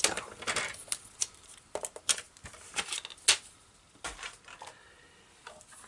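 Paper trimmer and cardstock being handled and moved aside: scattered short clicks and brief paper rustles, the sharpest click a little past three seconds in.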